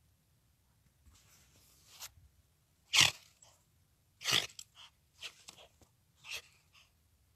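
A trapped otter giving a series of short, sharp huffs, roughly one a second, the loudest about three seconds in: threat calls from an animal held in a leg-hold trap.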